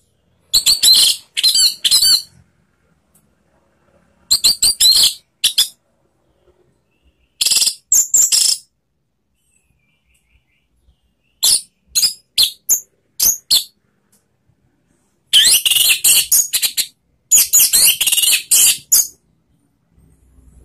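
Orange-headed thrush (anis merah) singing: the loud, open song that keepers call ngeplong, in phrases of rapid high notes a second or two long with pauses of a few seconds between them. The last two phrases come close together near the end.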